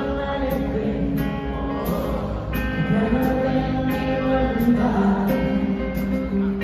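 Pop music with guitar and a sung melody over a steady beat.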